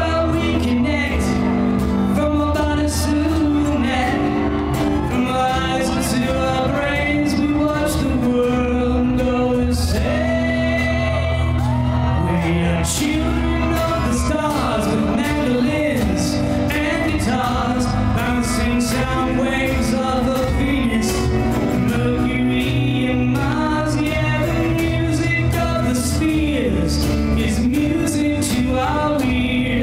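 Live rock band playing an instrumental stretch: electric guitars, bass and drums, with a lead guitar bending notes over a steady beat.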